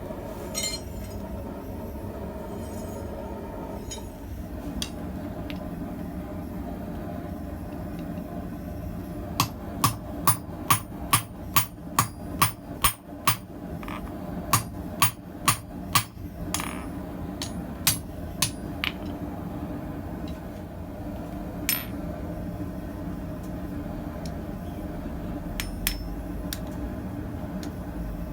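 Blacksmith's hammer striking hot steel on an anvil while forging a tong half: a quick run of about fourteen blows, roughly two a second, then a few single blows, over a steady low background hum.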